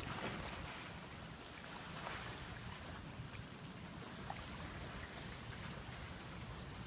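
Steady outdoor ambience of wind and gentle lapping lagoon water, swelling slightly twice in the first few seconds, with a faint short chirp about four seconds in.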